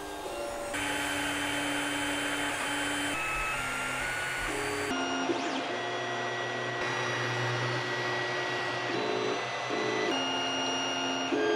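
FDM 3D printer running a print: its stepper motors sound as steady tones that shift to new pitches with each move of the print head, over the even hiss of its cooling fans.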